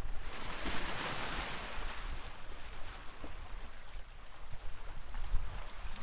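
Sea wave breaking and washing up the shore: a hiss that swells just after the start and fades away over the next few seconds, with wind rumbling on the microphone underneath.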